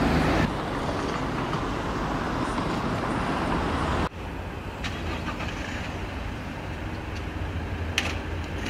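Steady road traffic noise of passing cars. About four seconds in it drops abruptly to quieter outdoor ambience with a few faint clicks.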